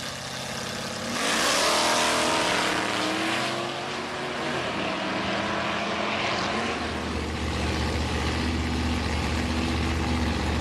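A drag-racing car's engine running hard at full throttle, loudest from about a second in with its pitch climbing, then dropping away. Near the end a deep, steady engine rumble takes over.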